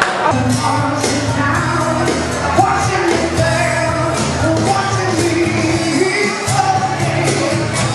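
Rock band playing with a singer, with held bass notes and a steady drum beat.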